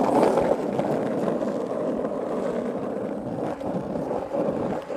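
Skateboard wheels rolling steadily over pavement, a continuous rumble.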